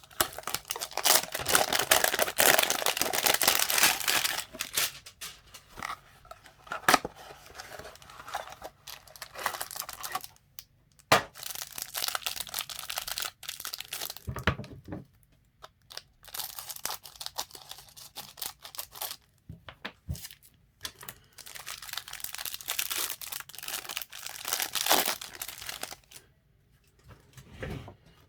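Cardboard and plastic packaging of a football trading-card hanger box being torn open and crinkled by hand. A long rip comes in the first few seconds, then on-and-off crinkling and small clicks, with a second stretch of tearing and rustling a few seconds before the end.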